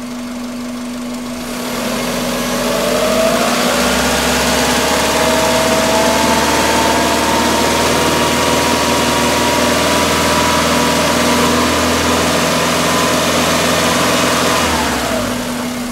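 Subaru 2.2-litre boxer four engine brought up from idle to a steady hold at about 2000 rpm about two seconds in, then let back down to idle near the end. It is a healthy engine with no exhaust restriction, running smoothly at the held speed.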